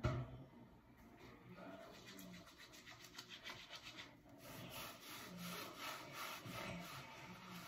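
Soapy hands rubbing and scrubbing wet hair: a faint, fast rubbing with a short pause about four seconds in.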